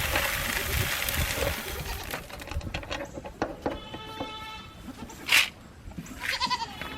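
Grain rattling and knocking as feed is drawn from a grain feeder into a bucket, with scattered clicks and a sharp rush about five seconds in. Goats or sheep bleat twice in the background.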